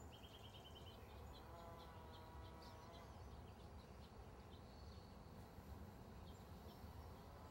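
Near silence: a faint low steady hum with distant small bird chirps, including a short trill right at the start.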